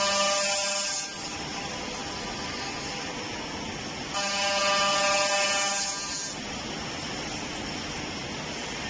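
CNC tenoning and mortising machine running with a steady mechanical background noise. Twice, for about two seconds each, a louder buzzing tone with a hiss starts and stops: once at the start and again about four seconds in.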